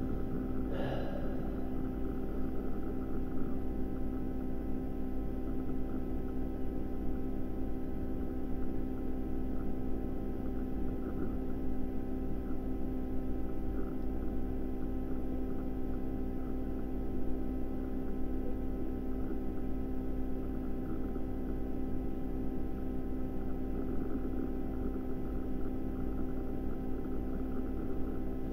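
Steady droning hum made of several held tones, with a brief sweeping sound about a second in.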